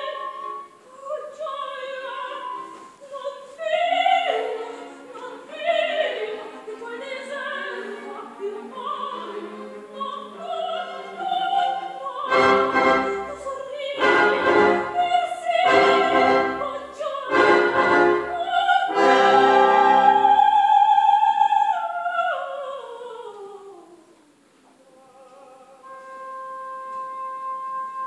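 Operatic soprano singing with vibrato over an orchestra. Partway through, the orchestra plays four heavy accented chords under her voice. She then holds a long high note and descends, and a soft held woodwind line follows near the end.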